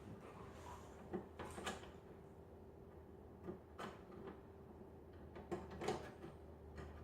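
Scattered light clicks and knocks of small metal furnace parts being handled and fitted together, a few sharper taps about a second in, near four seconds and near six seconds, over a faint steady hum.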